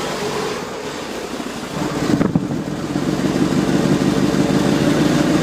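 Mitsubishi Lancer Evolution's 4G63 turbocharged inline-four running, brought up in speed about two seconds in with a brief crackle, then held steady at the higher speed. The engine has a knocking sound that the owner is chasing: it runs smoothly above about 2000 rpm but sputters and dies at idle.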